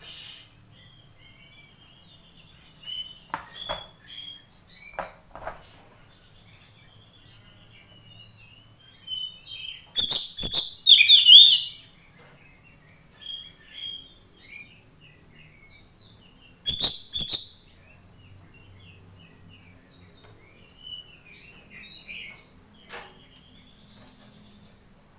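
Oriental magpie-robin (kacer) calling in short, sharp bursts, loudest in two clusters about ten and seventeen seconds in, with softer scattered chirps and quiet gaps between.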